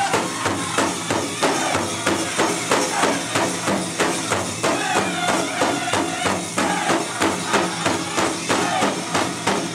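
Powwow drum group: a big drum struck in a steady, even beat while a group of singers sing over it.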